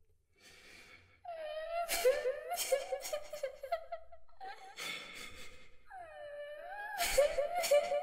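A little girl crying and weeping. A breath in, then a high wavering wail that breaks into short stuttering sobs. A gasping breath follows, then a second wail that dips and rises before breaking into sobs again near the end.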